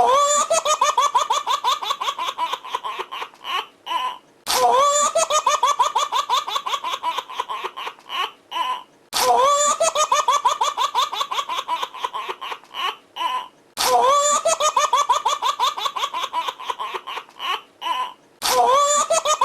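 Baby laughing hard: each laugh opens with a rising squeal, breaks into a quick run of giggling pulses and trails off into a few separate bursts. The same laugh recording repeats about every four and a half seconds, four times over.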